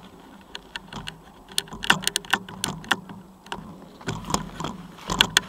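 Irregular metallic clicks and rattles from a mountain bike's rear derailleur and chain being worked by hand, in clusters around two seconds in and again near the end. The rear derailleur is bent after a crash.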